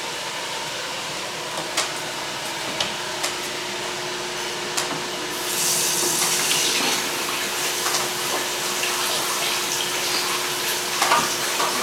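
Kitchen tap running into a sink as blueberries are rinsed; the water gets louder about halfway through, after a few light clicks.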